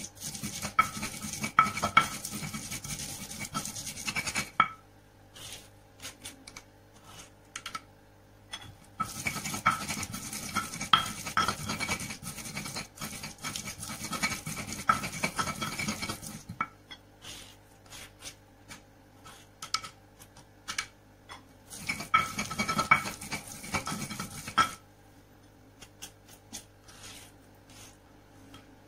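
Stone pestle (ulekan) grinding shallots, garlic and candlenuts into a spice paste on a stone mortar (cobek). The rough scraping and grinding comes in three spells, about four seconds, then about seven, then two to three seconds. Between them there are quieter spells of scattered light clicks and taps.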